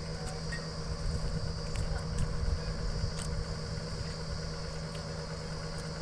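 Engine of a truck-mounted borewell drilling rig running steadily at idle, a low even hum.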